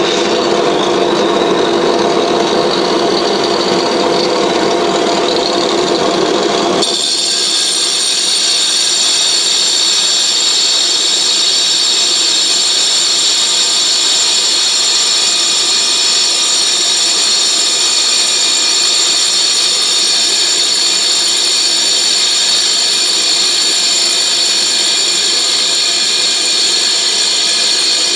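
Angle grinder running steadily against a 16-inch glass mirror blank, hollowing out its face. About seven seconds in, the sound changes abruptly from a lower drone to a high, hissing whine with several steady high tones.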